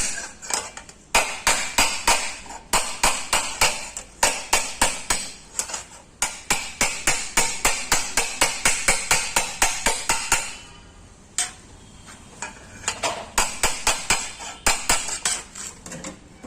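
Hand hammer beating out dents in a Maruti 800's sheet-steel body panel: rapid ringing metal blows at about four a second. A little after ten seconds in, the blows become sparser and more irregular.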